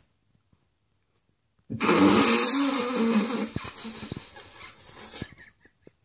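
Near silence, then about two seconds in a Huskimo puppy gives a breathy, wavering vocalisation lasting about three seconds before it trails off.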